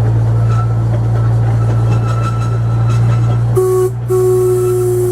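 Small tourist train running with a steady low engine drone, then near the end a short blast and a longer blast of its horn.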